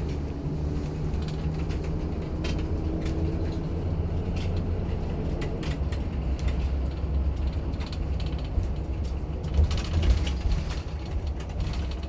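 Steady low rumble of a moving vehicle, with scattered rattles, creaks and clicks throughout and a couple of louder knocks near the end.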